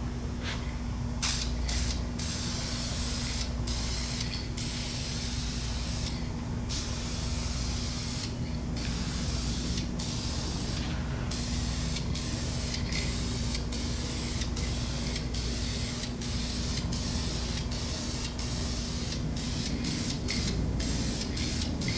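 Aerosol can of oil-based spray stain hissing as it is sprayed in long passes. The spray breaks off briefly many times between strokes. A steady low hum runs underneath.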